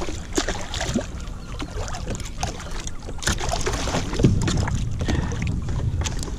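Hooked sea bass splashing at the surface beside a plastic sit-on-top kayak and then lifted out on the line, with scattered sharp splashes and knocks over a steady low rumble of wind on the microphone.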